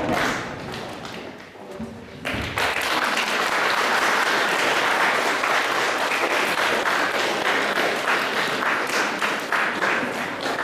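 The children's singing fades out, and about two seconds in an audience breaks into steady applause.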